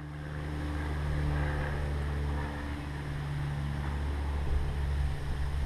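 An engine running steadily: a low drone with a hum of several steady tones that grows a little louder over the first second.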